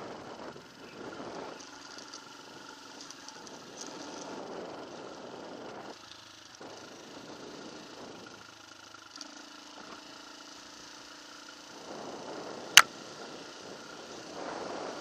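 Off-road vehicle engine running at low revs, its pitch shifting and dropping lower about nine seconds in. A single sharp knock near the end is the loudest sound.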